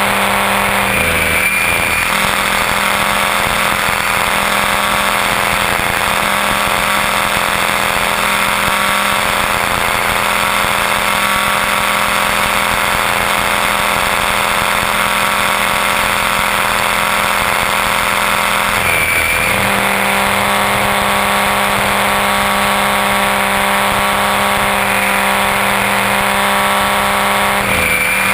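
Align T-Rex 500 ESP electric RC helicopter heard from its onboard camera: a steady whine from the motor, gears and rotor in flight. The pitch sags briefly and recovers three times (about a second in, around two-thirds through and near the end), as the rotor takes load during aerobatic manoeuvres.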